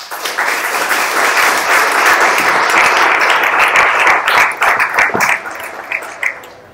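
Audience applauding: the clapping sets in all at once, holds steady, then thins out to scattered claps near the end.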